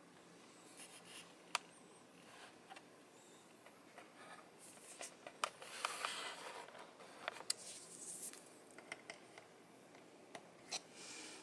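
Fingers handling plastic LEGO parts: soft scraping and rubbing on the bricks, broken by a handful of sharp little plastic clicks.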